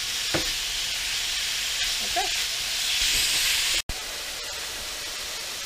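Oyster mushrooms sizzling steadily in hot olive oil in a stainless steel frying pan. The sizzle drops out for an instant about four seconds in, then continues a little quieter.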